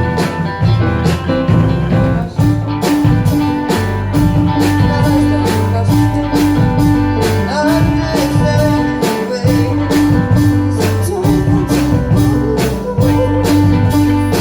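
Live band playing a pop-rock song: a drum kit keeps a steady beat under bass, guitar and keyboard.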